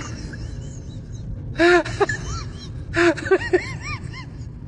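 A person's voice in a few short bursts, rising and falling in pitch, with a few seconds between the first bursts, over steady low background noise.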